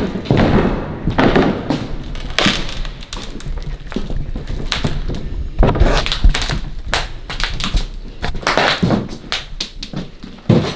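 A string of irregular thumps and knocks with scuffing noise between them, in a small echoing room.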